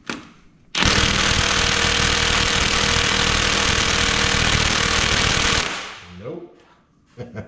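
Heavy 3/4-inch-drive impact wrench hammering steadily on a diesel cylinder head bolt for about five seconds, trying to break it loose, then stopping.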